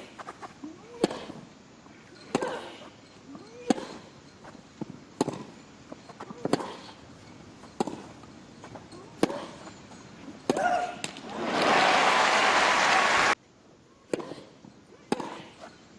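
Tennis rally: racquet strikes on the ball about every second and a half, several followed by a short grunt from the hitting player. About eleven seconds in, crowd applause and cheering swell up, then cut off abruptly, and the strikes of another rally follow.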